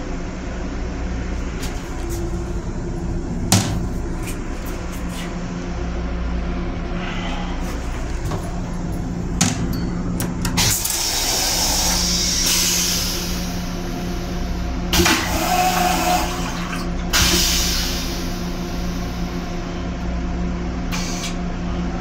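M7 railcar restroom toilet flushing: water hissing into the stainless steel bowl in three bursts over several seconds, the first and longest about halfway through, preceded by a couple of sharp clicks, over a steady low hum.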